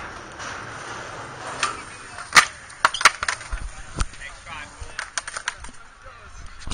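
Skateboard wheels rolling on concrete, then a run of sharp wooden clacks and slaps as boards hit the ground. The loudest is about two and a half seconds in, with a few more through the rest.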